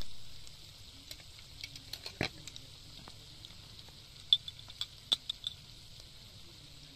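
A loud sound fading away at the start, then light clicks and ticks of a pot lid and food being handled over a cooking pot, with a quick run of sharper ticks a little past the middle. A steady high hiss lies under it all.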